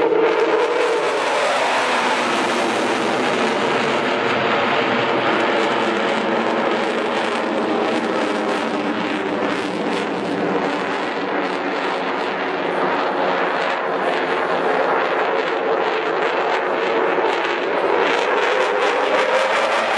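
Eurofighter Typhoon's twin Eurojet EJ200 turbofans running at display power, in afterburner at the start: a continuous loud jet noise whose tones slowly slide in pitch as the fighter moves across the sky.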